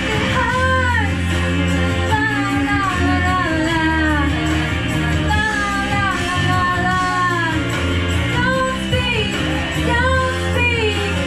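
A woman singing karaoke into a microphone over a recorded backing track, her sung melody gliding above steady bass notes.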